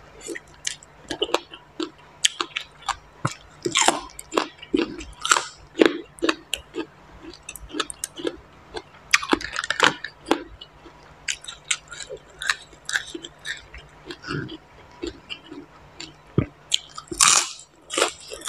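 Close-miked wet chewing of spicy papaya salad: irregular smacking and crunching mouth sounds, one after another, with a louder, longer noisy sound near the end.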